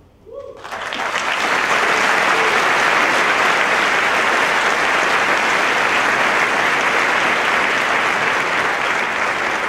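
Audience applauding. The clapping swells up over the first second, then holds steady and dense.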